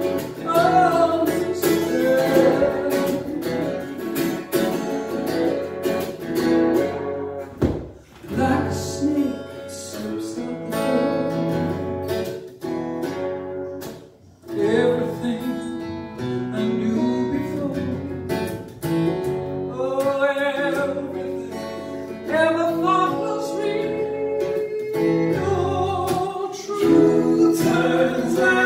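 A woman singing live through a microphone, accompanied by an acoustic guitar, amplified through a small PA. The sound dips briefly twice, about a third of the way through and about halfway.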